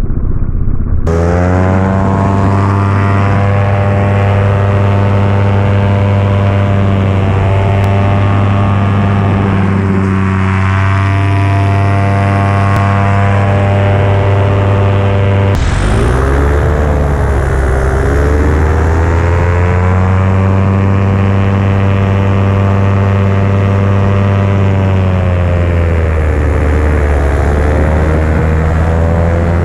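Paramotor engine and propeller running hard in flight, a steady loud drone. About halfway through the engine note drops suddenly, then dips and climbs again twice as the engine speed changes.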